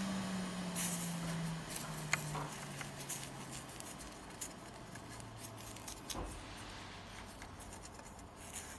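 Small clicks and scrapes of hands and tools working on a desktop computer, over a low hum that drops in pitch in several steps during the first six seconds.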